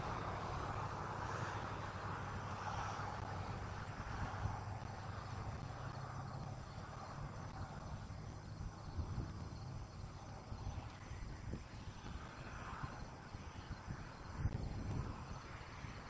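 Outdoor night background: a steady low hum with distant engine noise that fades over the first few seconds, then a short cluster of soft thumps and knocks about fourteen seconds in.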